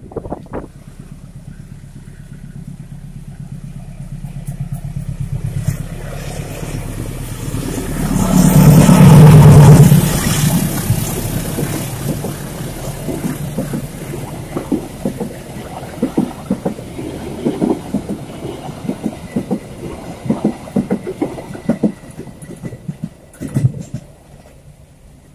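Kutojaya Selatan passenger train passing: the diesel locomotive's engine grows to its loudest about eight to ten seconds in. Then the carriages' wheels clack over the rail joints in a long run of quick knocks that fade toward the end.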